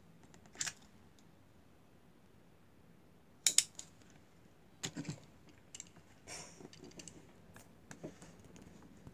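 Small clicks and clacks of die-cast metal toy cars being handled and set down on a wooden table, the loudest a pair of sharp clacks about three and a half seconds in and a duller knock about five seconds in.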